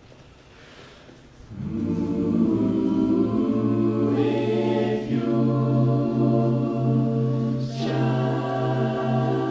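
A choir singing held chords, coming in about a second and a half in after a quiet start.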